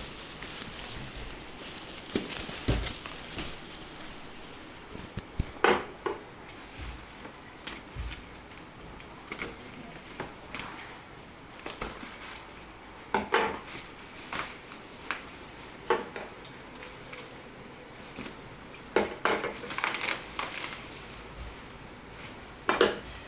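Parcel packaging handled as two keyboards are lifted out of a shipping box: irregular knocks, scrapes and rustles, with a few louder knocks.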